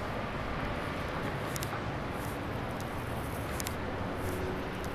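Steady outdoor ambience: an even low rumble and hiss with no distinct event, broken only by a couple of faint high ticks.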